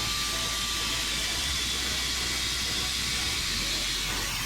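Power wire wheel scrubbing metal: a steady hiss with a faint thin whine, cleaning a sandblasted go-kart hub down to bare metal for welding.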